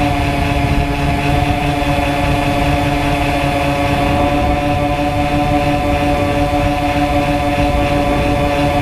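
RC model plane's motor and propeller droning steadily at a near-constant pitch, heard from the onboard camera, with wind rumbling over its microphone.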